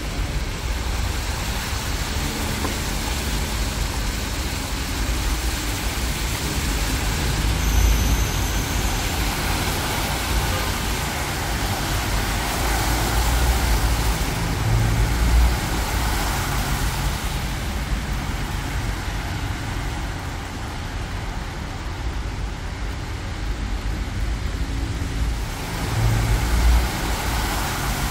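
Road traffic on a rain-wet city street: a steady hiss of tyres and rain, with the low rumble of passing vehicles swelling three times. A brief high whine comes about eight seconds in.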